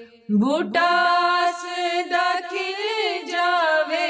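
Punjabi naat being sung: after a brief break near the start, the voice slides up into a new line and holds long, wavering notes.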